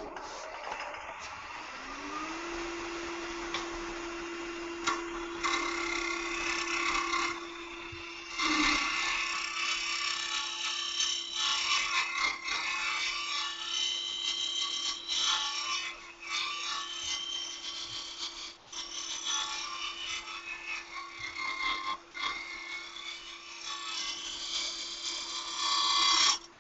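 Wood lathe spinning a small cocobolo duck-call blank, its motor whine rising in pitch about two seconds in and then holding steady. A strip of sandpaper rubs against the turning wood with an uneven scratching. The lathe sound and the rubbing both cut off near the end.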